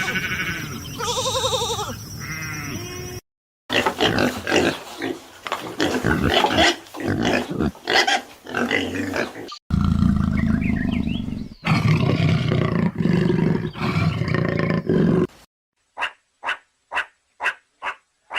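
A run of different animal calls, cut one after another. Pitched calls come first, then a stretch of many short grunting calls, then a low roar. Near the end, evenly spaced short calls come about two a second.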